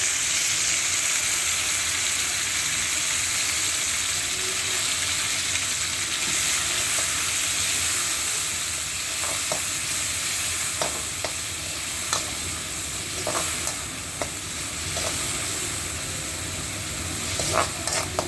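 Tempering sizzling in hot oil in a kadai as the ground pepper, cumin and garlic paste is sautéed with curry leaves, mustard seeds and urad dal. From about nine seconds in, a spoon clicks and scrapes against the pan as it is stirred.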